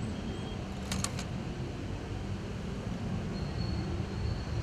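Steady low rumble, with three sharp clicks close together about a second in.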